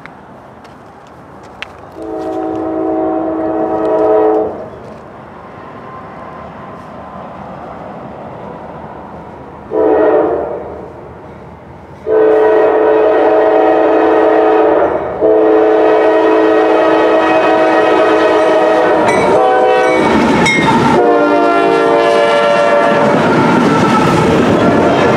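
Norfolk Southern diesel locomotive's air horn blowing for the grade crossing as the train approaches: a long blast, a short one, then a long held sounding with brief breaks. Near the end the locomotives pass close by with engine rumble and wheels clacking over the rail joints.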